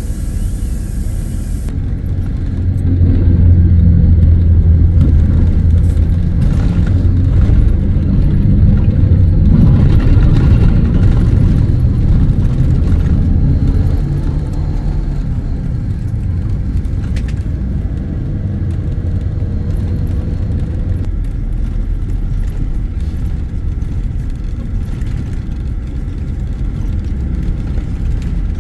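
An engine running with a steady low rumble. It grows louder about three seconds in and eases back about fourteen seconds in.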